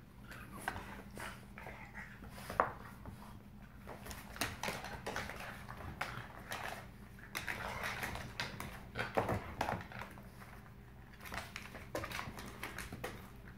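Two dogs play-fighting on a wooden parquet floor: irregular scuffling, claws clicking on the boards and mouthing, with a few short, sharper dog sounds such as one about two and a half seconds in and another about nine seconds in.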